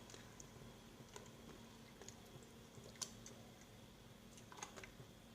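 Near silence with a few faint, sharp clicks and taps of kitchen handling as the meat is added to the cooking pot, over a low steady hum.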